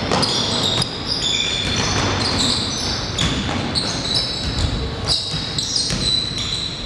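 Basketball game in a large gym: the ball bouncing on the court, repeated knocks with hall echo, and short high sneaker squeaks.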